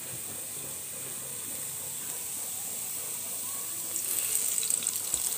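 Sliced onions sizzling in hot oil in a nonstick pan: a steady hiss that grows louder, with crackling, about four seconds in.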